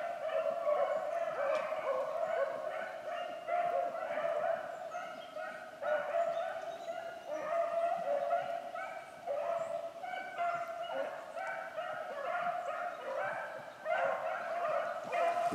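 Several rabbit-hunting dogs baying and yelping together without letup as they run a rabbit's trail through the swamp.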